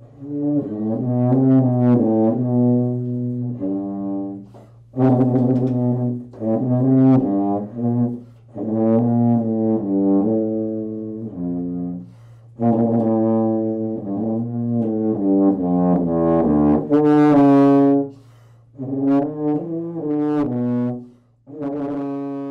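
Solo tuba playing a slow melody in phrases, with short breath pauses between them, over a low note held beneath most of it.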